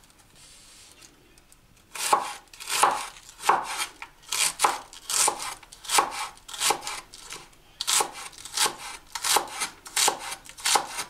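Chef's knife finely shredding a head of cabbage on a wooden cutting board: a steady run of knife strokes, each slicing through the leaves and knocking on the board, starting about two seconds in.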